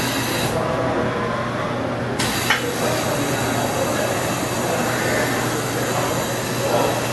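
Steady machine-shop noise, a low hum under a high hiss. The hiss drops out for about a second and a half near the start, and a single sharp click sounds about two and a half seconds in.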